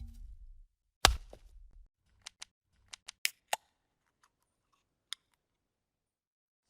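Transition sound effects: a sharp hit about a second in that dies away, then a scatter of short, crisp clicks, with one more click later.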